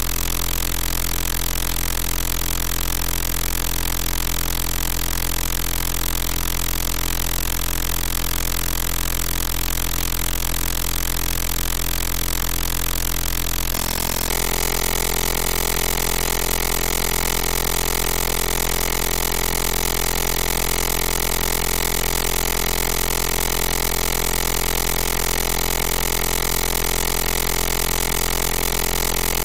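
Sustained electronic drone: a low hum under many held, unchanging tones. The whole chord shifts to a new set of tones about 14 seconds in and then holds steady again.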